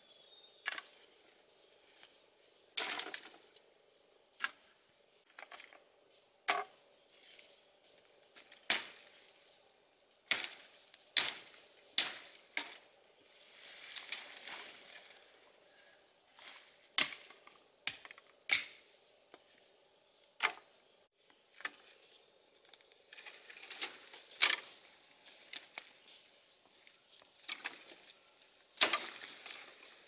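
Machete chopping woody stems and brush: sharp, irregular strikes every second or two, with leaves and branches rustling between them.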